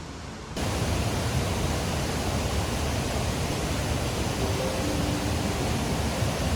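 Steady, loud rush of fast-flowing water, starting abruptly about half a second in. A few faint music notes come in near the end.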